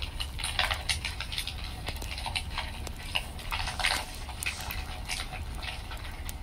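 Wood fire in a fireplace crackling, with irregular pops and snaps over a low steady rumble.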